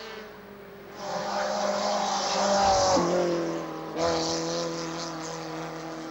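A small rear-engined race car's engine revving hard as it climbs through a bend, its note rising in pitch, then dropping sharply about three seconds in. It picks up loudly again a second later and then slowly fades as the car drives past.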